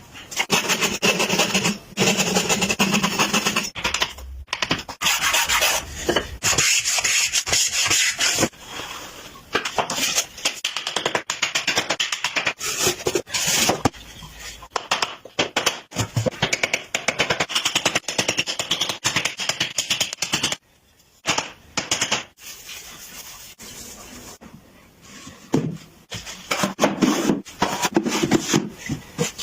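Hand work on wood: rubbing and rasping in quick, choppy strokes mixed with sharp knocks, with a short lull about two-thirds of the way through.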